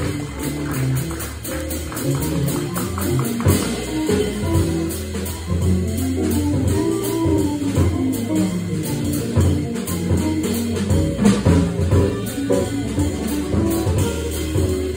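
A jazz organ trio playing live: electric guitar and organ lines over organ bass notes, with the drum kit keeping steady cymbal time.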